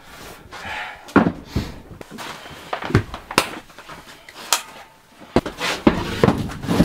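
A folding camp cot's metal frame being unfolded and set up: a string of sharp clacks and knocks as the legs and frame bars snap into place and bump the plywood floor.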